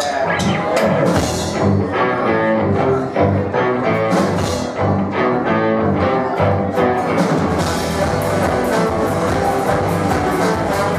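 A live band playing, the music starting right after crowd chatter, with bass notes and a steady beat; it fills out with more cymbal-like hits about seven seconds in.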